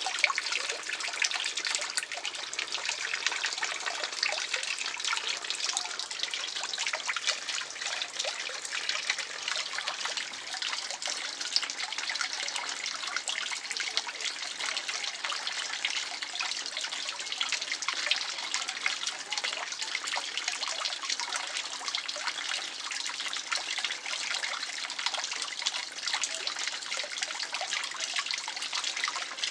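Water in a garden fish pond trickling and splashing steadily, a continuous patter of small splashes with no let-up.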